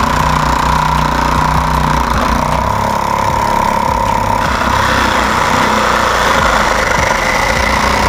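Homemade scroll saw driven by a 775 DC motor running steadily, its reciprocating blade cutting through a PVC wiring channel. The tone grows brighter about four and a half seconds in. The builder finds this 775 motor short of speed and torque.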